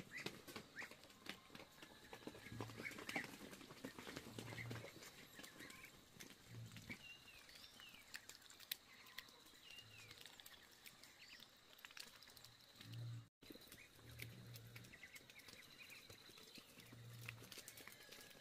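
Ducks calling faintly in short, scattered chirps, over a patter of soft clicks.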